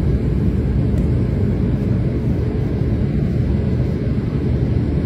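A steady, loud low rumble.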